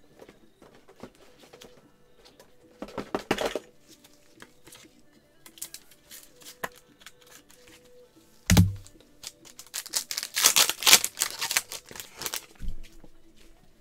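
Trading cards and plastic card sleeves being handled by gloved hands: short rustles and crinkles, a sharp thud about 8.5 s in as something is set down on the table, and a loud stretch of rustling as the cards are flipped through near the end. Faint background music plays underneath.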